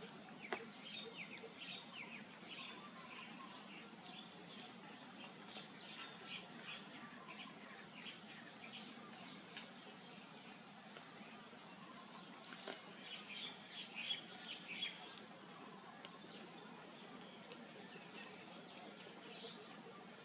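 Insects chirring steadily in a faint, high, evenly pulsing drone. Scattered short high chirps are clustered in the first few seconds and again about two-thirds of the way through.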